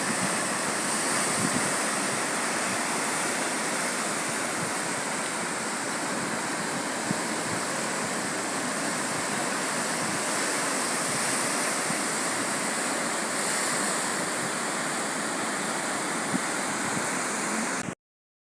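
Sea surf washing steadily against the shore, cutting off abruptly to silence just before the end.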